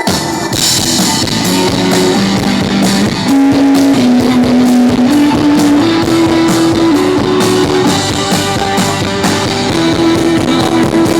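Live pop-rock band playing an instrumental passage: guitar and drum kit under a held melody line that steps from note to note, with no vocals yet.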